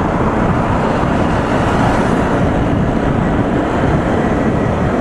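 Motorcycle riding at highway speed: a steady rush of wind on the microphone mixed with the engine and tyre noise of the bike at cruise.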